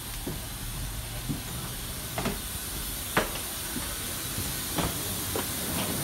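Steady rushing hiss of air in the jet bridge and aircraft doorway, with scattered footsteps of passengers walking aboard; the sharpest step or knock comes about three seconds in.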